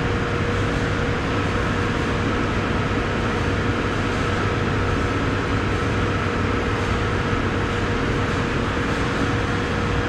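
Steady drone of running machinery with a constant hum tone held throughout.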